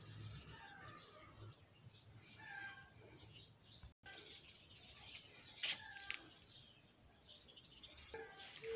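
Faint small birds chirping, short quick calls over and over. A sharp click comes about halfway through, and near the end a low repeated cooing begins.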